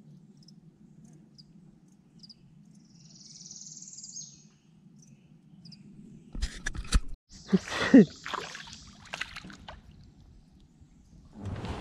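A hooked bream splashing and thrashing at the water surface beside a small boat, loudest about eight seconds in, preceded by a few sharp knocks against the boat. A low steady hum runs underneath before the action starts.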